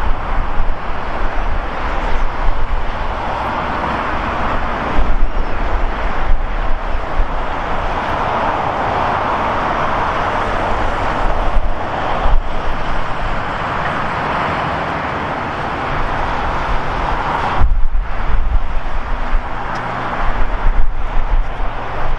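Jet airliner engines running at an airport: a steady rushing roar that swells and eases a few times.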